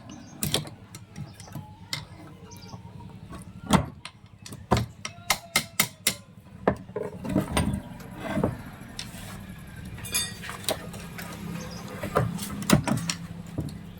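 Irregular sharp knocks and clinks of hand tools on metal parts during tractor brake repair, over a steady low hum.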